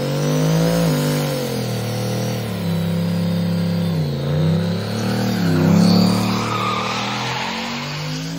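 Graffiti-painted Jeep-fronted 4x4 pickup doing a burnout: its engine revs hard while the rear tyres spin and squeal on the pavement. The revs dip sharply twice, about four and five and a half seconds in, and climb again each time.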